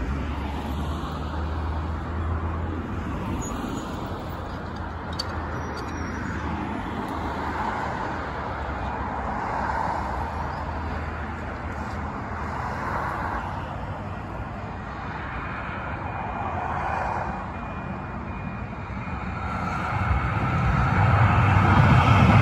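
Steady road-traffic noise with cars swelling past one after another. Near the end a C-Train light-rail train arrives at the level crossing, and a low rumble grows louder as it rolls through.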